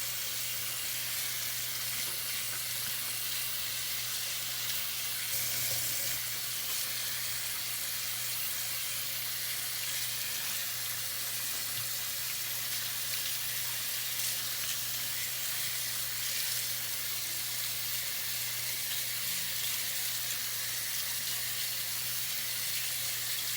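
Tap water running steadily, splashing through a lace wig's hair as shampoo is rinsed out of it.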